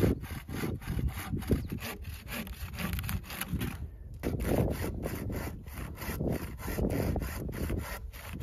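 Folding hand saw cutting through a log in quick, even back-and-forth strokes, with a brief pause about four seconds in before the sawing resumes.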